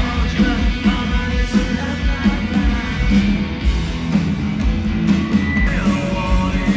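A rock band playing live, with a singer's voice over the music.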